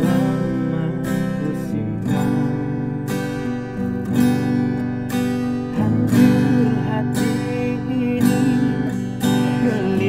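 Acoustic guitar strummed about once a second, with a group of voices singing a slow ballad along with it.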